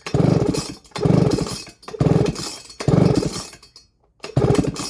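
Baumr-AG SX92 two-stroke chainsaw being pull-started: five quick pulls on the recoil starter about a second apart, the engine cranking over each time without catching.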